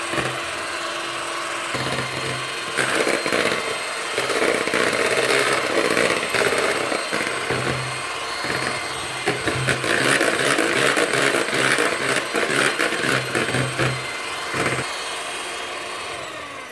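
Electric hand mixer whipping cream into chantilly in a plastic bowl, its motor running steadily; it gets louder and rattlier from about three seconds in and fades out at the very end.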